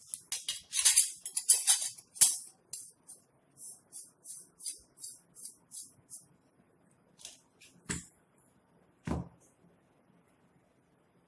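Brass sev press parts clinking and scraping against a steel plate while being greased with oil: a quick jingly flurry of metal clinks, then lighter clinks about three a second. Near the end come two heavier knocks as the brass cylinder is set down on the plate.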